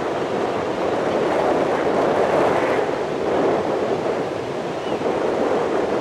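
Surf washing onto a beach, with strong wind buffeting the microphone: a steady, full rush of noise.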